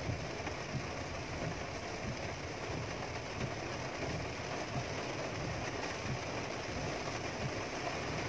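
Heavy rain beating steadily on a car's roof and windshield, heard from inside the cabin over the low rumble of the car's engine.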